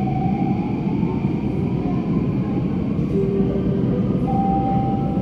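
Bombardier C951 metro train accelerating out of a station in a tunnel: a steady low rumble of the running train with a thin electric whine that climbs slowly in pitch as it gathers speed.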